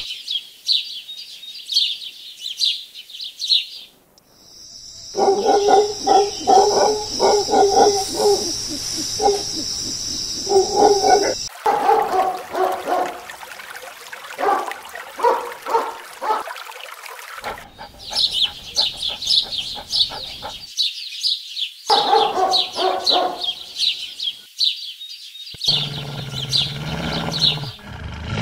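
A string of animal calls: high-pitched chirping at first, then a dog barking over and over from about five seconds in until past the middle, then more high chirping with a few more barks mixed in.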